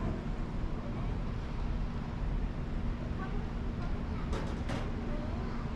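Steady low rumble and constant hum of a cruise ship's engines and thrusters as it manoeuvres, with two quick clicks a little after four seconds in.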